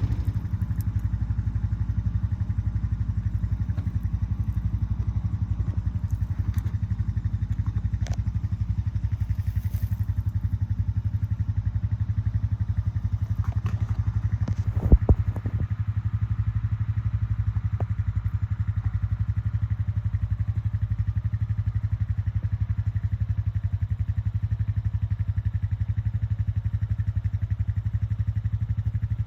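A vehicle engine running steadily at an even speed, with a couple of short knocks about halfway through.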